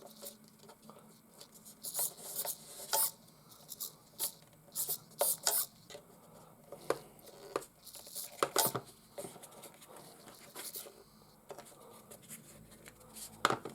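Intermittent light clicks, taps and rustles from objects being handled by hand, a few sharper knocks among them.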